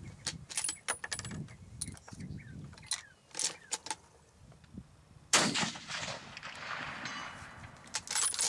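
Bolt action of a Remington 770 .30-06 rifle being worked by hand: a series of sharp metallic clicks and clacks as the bolt is lifted, drawn back and pushed home. About five seconds in comes one louder sharp crack that trails off.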